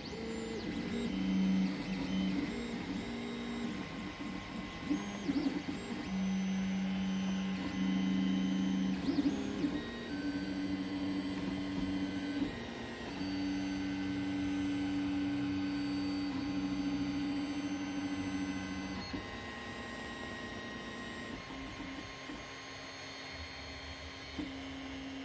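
Creality CR-X 3D printer running a print: its stepper motors sing in pairs of steady low tones that jump to a new pitch every second or few as the print head changes moves, over a faint steady higher whine. The motor tones are quieter for the last few seconds.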